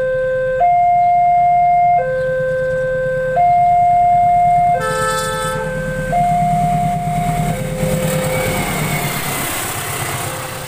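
Level crossing warning alarm sounding two alternating tones, high then low, each held about a second and a half, over the low rumble of an approaching CC 203 diesel locomotive. About five seconds in, a short many-toned horn chord sounds. Then the rushing wheel noise of the passing train rises and drowns the alarm.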